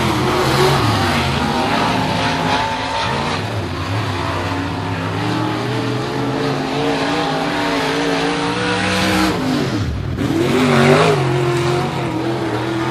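Dirt late model race car V8 engines running hard around a clay oval, their pitch wavering as they lift and get back on the throttle through the turns. About ten seconds in, a car passes close by: its pitch drops sharply and then climbs again as it accelerates away.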